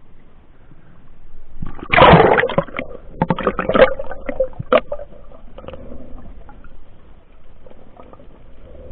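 Water splashing and sloshing: a loud splash about two seconds in, then a run of sharp knocks and clicks, easing into a low steady wash.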